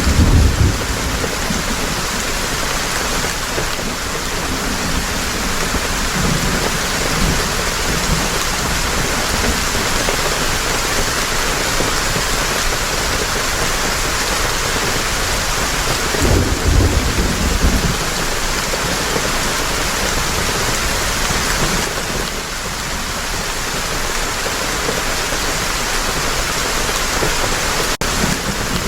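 Heavy rain falling steadily, with a low roll of thunder at the start and another about two-thirds of the way in.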